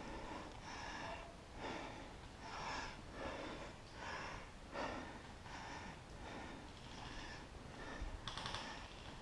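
A person breathing hard close to the microphone, about one breath a second.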